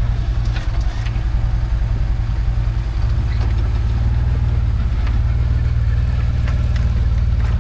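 A heavy vehicle's engine running steadily at a low pitch close by, with a few light clicks over it.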